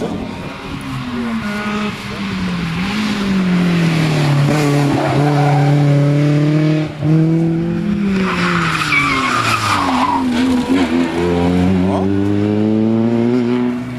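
Rally car engine revving hard, its pitch climbing and dropping again and again as it changes gear and lifts off. Around eight seconds in, there is a burst of rough, scrubbing noise as the pitch falls away, likely the tyres sliding while the car brakes. Then the engine pulls up again and holds a steady high rev.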